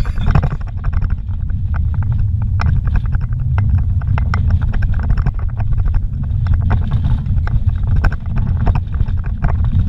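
Car driving on a dirt road, heard from inside the cabin: a steady low rumble of tyres and engine, with frequent short knocks and rattles from the rough surface.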